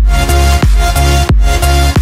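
Background music with a heavy bass and a strong steady beat, about three beats every two seconds.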